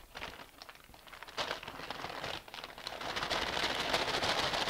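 Oil-soaked brown paper crinkling and rustling as it is bent into a chute over a glass jar to slide roasted garlic cloves in. Quiet at first, a short rustle about a second and a half in, then steadier crinkling from about three seconds in.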